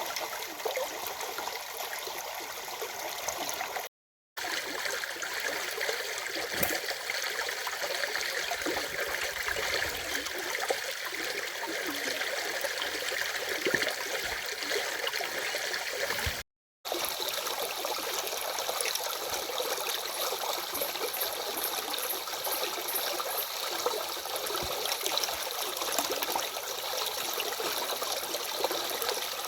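Stream flowing over rocks: a steady rush of water with trickling and gurgling. The sound cuts out completely for a split second twice, about four seconds in and again about sixteen seconds in.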